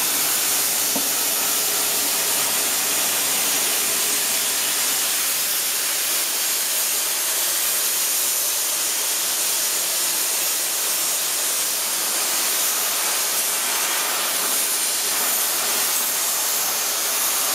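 Methane-oxygen flame-cutting torch on a Zinser CNC 2030 gantry cutter, burning through 35 mm thick steel plate: a steady, even hiss of the gas and cutting-oxygen jet.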